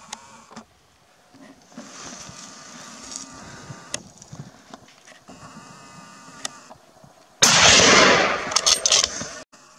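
A single loud rifle shot about seven and a half seconds in, its blast ringing on for about a second and a half, followed by a few sharp clicks. Before the shot there are only faint outdoor sounds.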